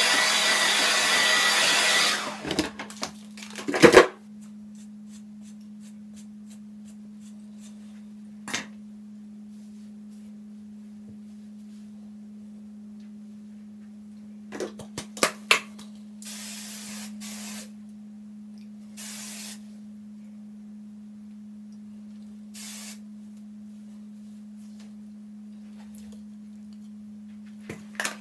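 Handheld hair dryer blowing, then switched off about two seconds in. A clatter follows, then a steady low hum with a few short hisses.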